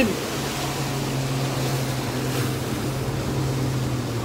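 Small fishing boat's outboard motor running at a steady pitch, with a haze of water and wind noise.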